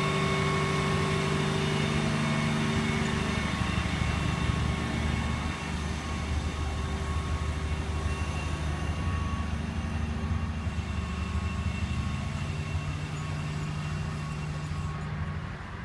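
Crane engine running steadily with a low hum and a few steady whining tones while it lowers a suspended condenser unit; the hum eases a little about five and a half seconds in.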